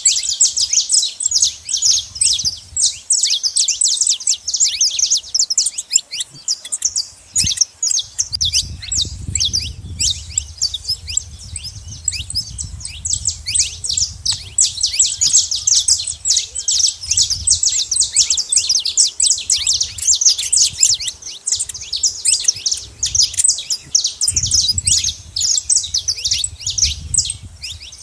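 Saffron finches at a seed feeding spot, chirping rapidly and continuously, many quick high notes packed close together.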